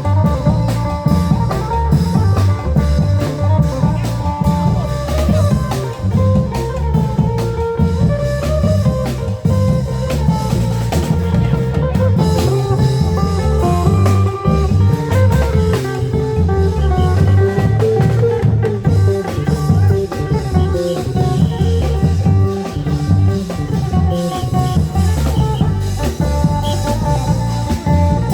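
Klong yao long-drum band playing lively Isan procession music: steady pounding drums under a melodic lead line.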